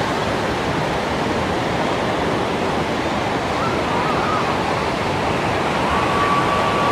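Steady rushing noise of ocean surf. A faint, steady high tone comes in about six seconds in.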